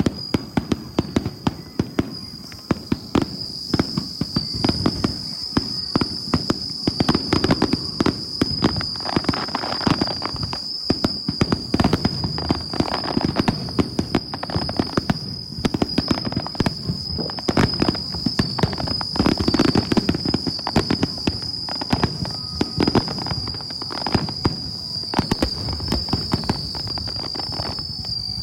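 Aerial fireworks display: rapid crackling bursts and booms, several a second, one after another without a break.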